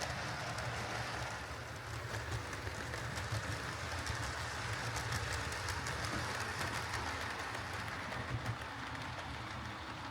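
Hornby Class 4P OO gauge model steam locomotive running steadily along the track: a steady motor and gear whir with faint wheel clicks.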